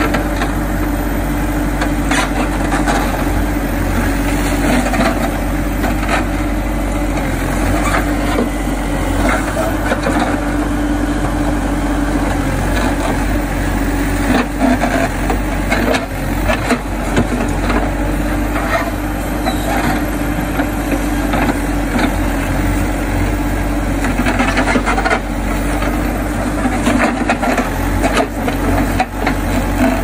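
Hidromek 102S backhoe loader's diesel engine running steadily while the backhoe arm digs in wet mud, with scattered knocks and scrapes from the bucket working the ground.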